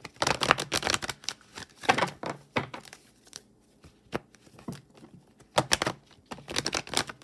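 Tarot cards being shuffled and handled: irregular runs of quick card slaps and rustling, with a quieter stretch in the middle.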